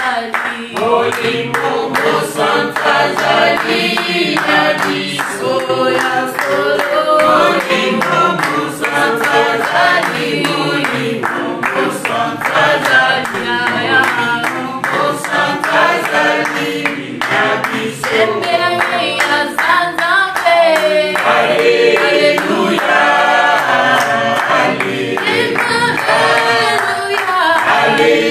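A small group of voices singing a worship song together, with hands clapping along in time.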